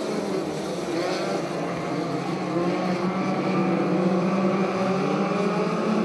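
A pack of dirt-track midget race cars running at full throttle together, their engine notes blending and wavering in pitch as the cars power off a turn onto the straight.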